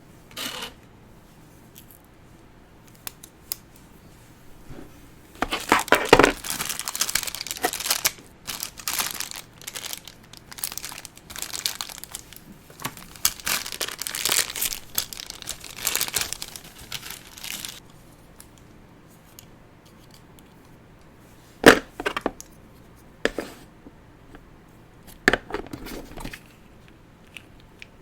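Doll packaging being crinkled and torn in a run of noisy bursts lasting about twelve seconds, followed by a few short, sharp clicks.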